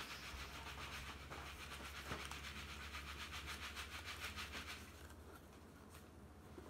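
Palm-leaf strips rubbing and rustling against each other as a ketupat casing is woven by hand, over a low steady hum. The rustling falls away about five seconds in.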